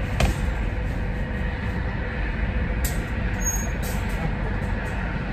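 Steady low rumble of the parked SUV's engine idling, heard from inside the cabin, with a few light clicks and rattles from a wire dog crate being handled in the open cargo area.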